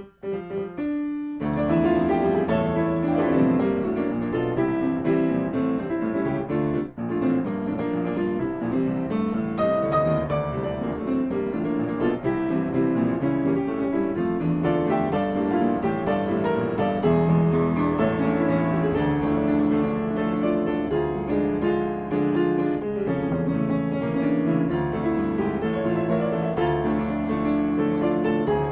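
Solo piano music, a continuous flow of notes, with a short break about a second in before it carries on.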